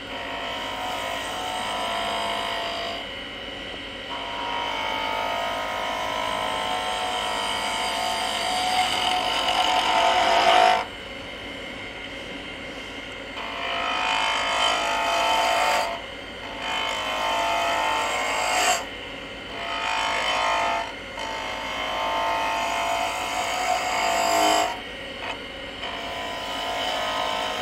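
Spindle gouge cutting a spinning wooden spindle on a wood lathe, rounding it over: one long cut of about ten seconds, then five shorter cuts of two or three seconds each with brief pauses between. The lathe's steady hum carries on under the cuts.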